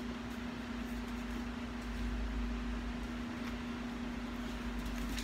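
Steady low hum of room background noise with a constant tone, unchanging throughout.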